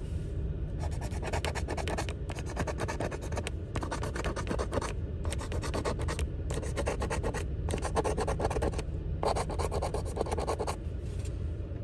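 A coin scratching the coating off a paper scratch-off lottery ticket, in about eight quick spells of rapid scraping strokes with short pauses between them.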